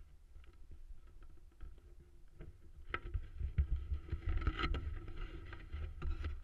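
Handling noise on a helmet-mounted GoPro as the helmet is unbuckled and taken off: rubbing, knocks and clicks over a low rumble on the microphone. It grows louder about three seconds in.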